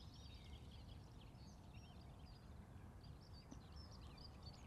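Faint songbird chirps and twittering, many short quick notes, over a steady low outdoor rumble.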